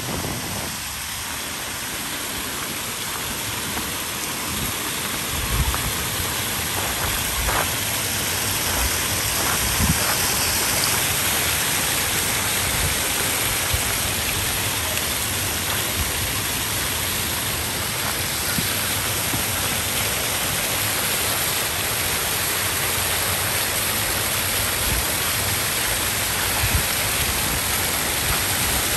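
Tiered stone fountain splashing: water spilling from its stacked basins and small jets spurting up and falling back into the pool, a steady splashing hiss that grows louder over the first several seconds and then holds.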